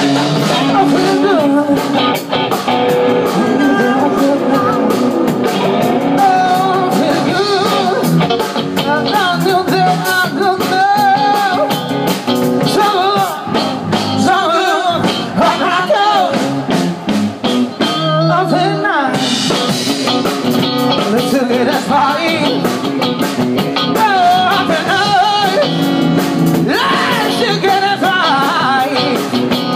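A live band playing with electric guitars, bass, keyboard and drums, and a man singing into a handheld microphone.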